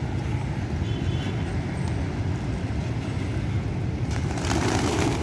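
Steady low outdoor rumble of traffic and wind; about four seconds in, a rush of flapping wings as part of the pigeon flock takes off.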